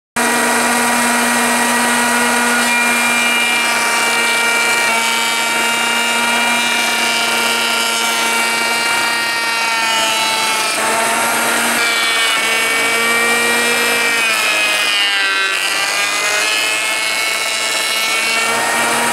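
Electric hand planer running with a steady high motor whine. Its pitch dips briefly about ten seconds in and wavers down and back up around fifteen seconds in as it cuts across a wide wooden board.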